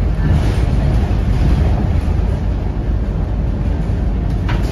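Cabin noise inside a Scania K230UB city bus on the move: the steady low drone of its 9-litre five-cylinder diesel engine mixed with road and tyre noise. A short click comes near the end.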